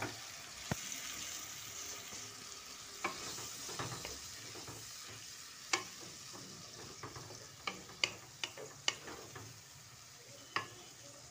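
A spatula stirring and scraping a thick spice masala frying in oil in a kadai, with a steady sizzle and about ten sharp clicks as the spatula knocks the pan. The masala is being sautéed down until it is nearly cooked through.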